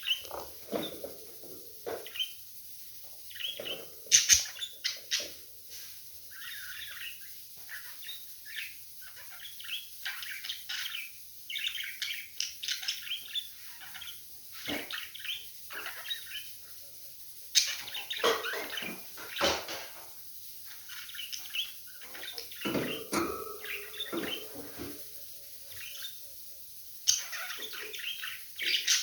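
Budgerigars chirping and chattering in a continuous run of short warbled calls, with a few louder, sharper notes scattered through.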